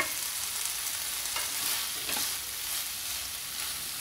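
Cauliflower and green peas frying in oil in a pan with a steady sizzle, while a wooden spatula stirs through them with a few light knocks. A single sharp tap at the start is the plate knocked against the pan to shake off the last of the spice powder.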